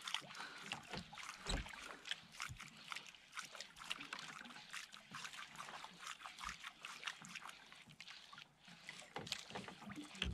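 Faint water lapping and sloshing against a small fishing boat's hull, with many small irregular clicks and splashes.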